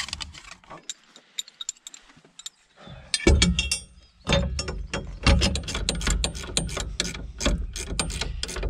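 Metal hand tools clicking and knocking on the fittings of a tractor's injector return hoses as they are seated and tightened. A few scattered clicks come first, then from about three seconds in a dense run of sharp clicks and knocks.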